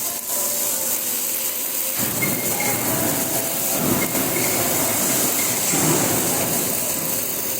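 MIG welding arc crackling and hissing steadily, growing fuller about two seconds in.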